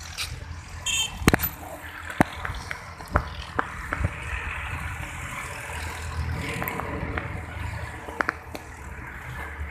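Low, unsteady rumble of wind on a phone microphone, with irregular clicks and knocks from the phone being handled as it moves. There is a short high squeak about a second in.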